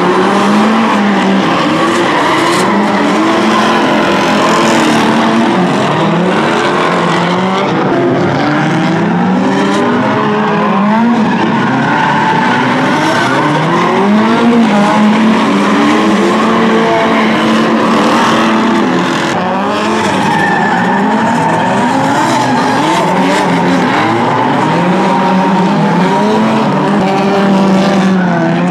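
Several drift cars' engines revving up and down over one another, pitch climbing and dropping repeatedly, with tyre squeal from cars sliding sideways.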